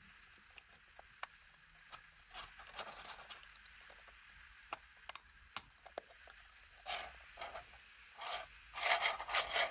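Plastic parts of a 3D-printed V2 engine model being handled and fitted together: scattered light clicks and taps, then louder scraping and rubbing of plastic on plastic in the last few seconds.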